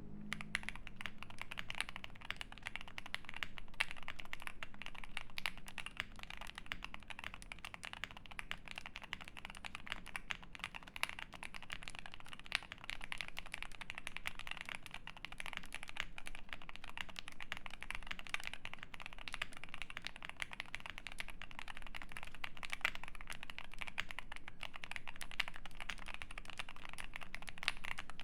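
Jelly Epoch 75% mechanical keyboard with lubed Alpaca linear switches on a polycarbonate plate and GMK Cafe keycaps, being typed on fast and without pause. The rapid keystrokes start right at the beginning and run on as a dense, even stream of clacks.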